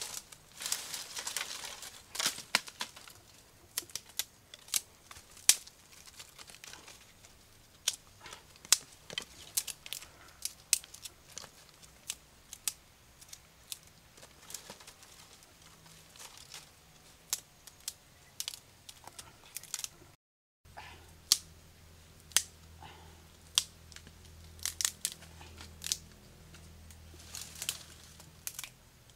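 Scattered sharp clicks and crackles from handling: snail shells clattering together as a hand rummages in a woven basket, then dry sticks and leaves being handled.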